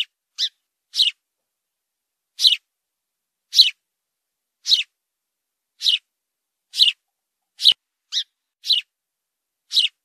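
A sparrow chirping: single short, sharp chirps about once a second, each a quick downward sweep, with a quicker run of three near the end.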